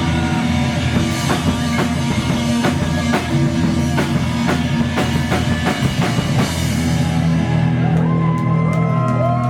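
Rock band playing the instrumental close of a song: drum kit hits over distorted guitar and bass. About seven seconds in the drums stop, leaving held bass and guitar notes with bending guitar lines.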